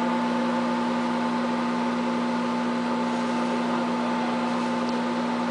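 Microwave oven running with a steady hum, heating a marshmallow.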